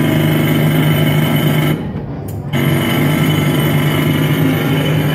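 Pneumatic rock drill sound played back over the mine exhibit's speakers, running steadily with a deep hum and a brief drop about two seconds in.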